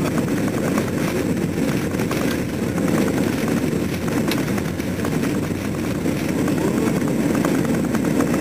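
Airbus A320 jet engines at takeoff power heard from inside the cabin during the takeoff roll: a loud, steady, deep noise with the rumble and fine rattling of the wheels running fast along the runway.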